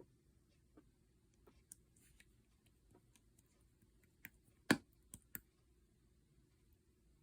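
Custard-pudding mixed slime being handled by hand, giving scattered small clicks and pops, with a cluster of louder pops about halfway through.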